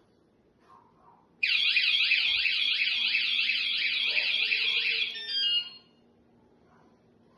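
Battery-powered wireless bike alarm (wsdcam 113 dB vibration/motion type) sounding its siren: a loud, rapid rising-and-falling warble that starts suddenly about a second and a half in and cuts off about four seconds later.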